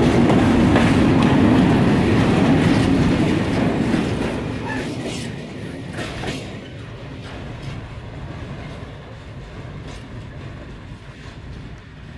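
Freight train of Faccs hopper wagons rolling past, wheels rumbling and clattering on the rails, with a few sharp clanks about five and six seconds in. From about four seconds in the sound fades steadily as the tail of the train moves away.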